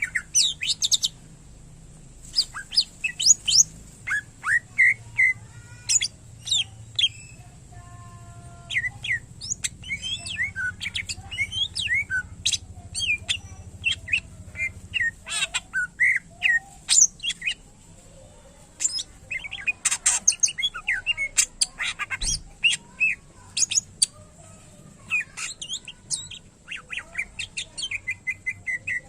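Green leafbird (cucak ijo) singing a rapid, varied stream of short chirps, whistles and pitch glides, its song laced with phrases copied from other birds.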